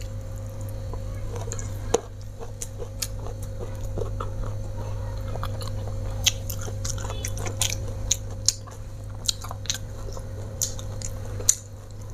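Close-miked chewing of a mouthful of rice and fried fish, with many short wet clicks and smacks of the mouth, over a steady low hum.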